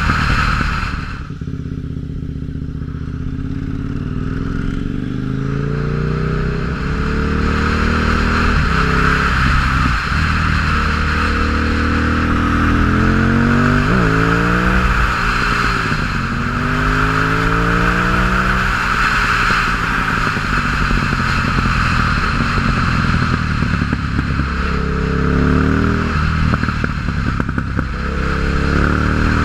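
2006 KTM 950 Supermoto's V-twin through a MIVV exhaust with no dB-killers, ridden hard through the gears: the engine note climbs with the revs and drops back at each shift, again and again, with a few sharp throttle-offs and reopenings.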